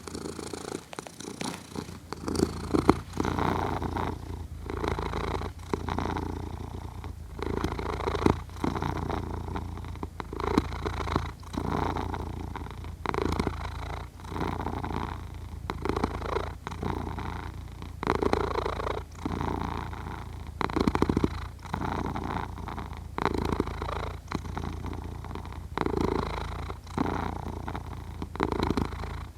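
A sleeping cat purring, the purr swelling and easing with each breath, about one breath every two and a half seconds.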